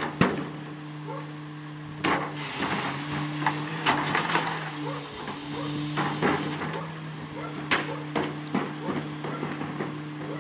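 A New Way rear-loader garbage truck idles with a steady engine hum while carts are emptied into its rear hopper by hand. Several sharp knocks of the cart against the hopper edge stand out, with a clatter of contents tumbling in about two to four seconds in.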